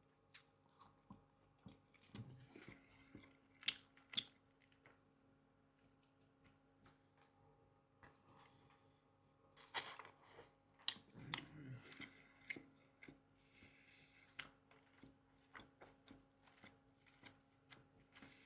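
Faint chewing of a bite of plant-based burger in pita, with scattered small mouth clicks and a sharper click about ten seconds in.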